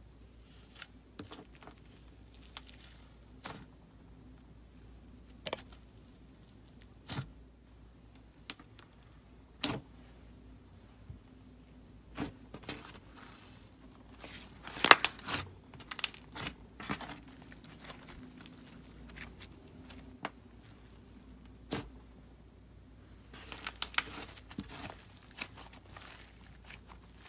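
Fluffy pink clay slime being pressed, squished and stretched by hand, giving scattered soft pops and crackles, with a dense, louder run of crackling in the middle and another near the end.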